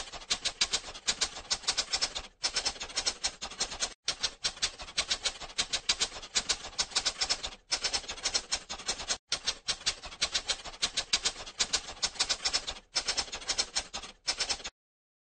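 Typewriter sound effect: rapid key clacks, several a second, in runs broken by short pauses, stopping just before the end.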